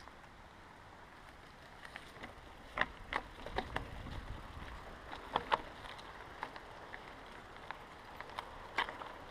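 Bicycle rolling over a rough dirt trail: scattered clicks and rattles over a steady hiss, with a brief low rumble near the middle.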